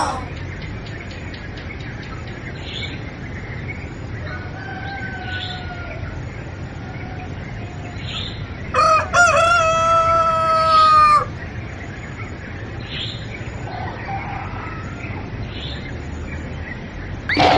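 A rooster crowing: one loud crow about two seconds long near the middle, a fainter call a few seconds before it, and small bird chirps here and there over a steady background.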